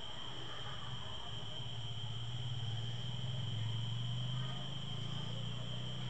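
Domestic cat purring: a low, rapidly pulsing hum that swells louder in the middle, with a steady high-pitched drone behind it.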